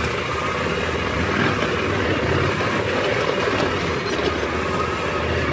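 KTM 790 Adventure R's parallel-twin engine running at low, steady revs while the bike rolls down a loose dirt trail, mixed with rumble and clatter from the tyres and chassis and wind noise.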